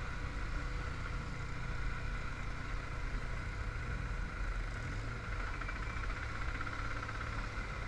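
Motorcycle engine running steadily on the road, with an even rush of road and wind noise.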